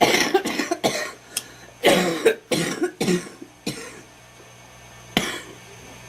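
A girl coughing in a fit: a rapid run of coughs over the first four seconds, then one more single cough about five seconds in.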